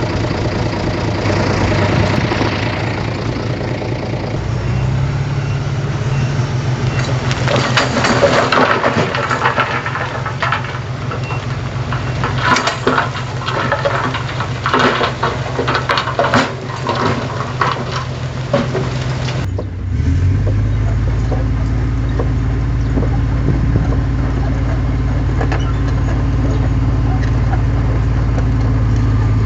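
Diesel engine of heavy earthmoving equipment running steadily, revving up slightly early on, with repeated metallic clanks and knocks through the middle. About two-thirds through the sound cuts abruptly to a steadier, deeper engine drone.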